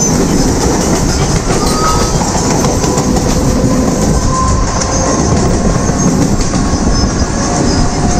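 Mumbai suburban local electric train running at speed, heard from inside a moving carriage: a steady rumble of wheels on rails with clickety-clack over the rail joints.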